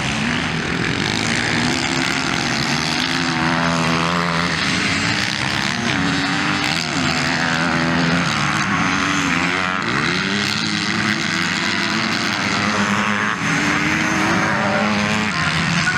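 Several motocross bike engines revving on the track, their pitch repeatedly climbing and dropping as the riders open and close the throttle through the turns.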